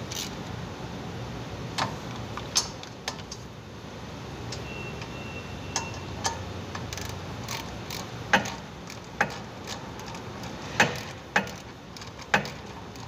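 Metal hand wrench clicking and clinking against a bolt and the steel rear suspension parts as it is worked by hand. About a dozen sharp, irregular clicks, the loudest coming in the second half.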